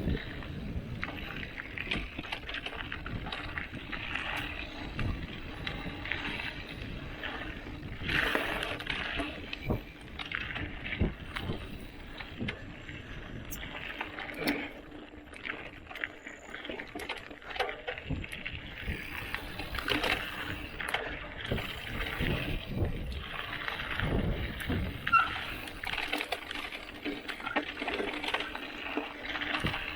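A Santa Cruz Highball hardtail mountain bike ridden along a dirt trail: its knobby Maxxis tyres rolling over the ground, with frequent short knocks and rattles as it goes over bumps.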